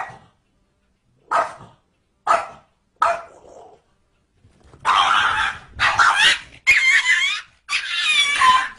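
Small dog barking: a few short sharp barks about a second apart, then four longer, louder yelping barks in quick succession whose pitch wavers and bends.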